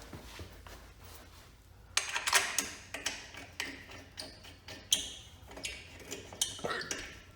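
Irregular light metallic clinks and taps of tools and motorcycle brake caliper hardware being handled, starting about two seconds in.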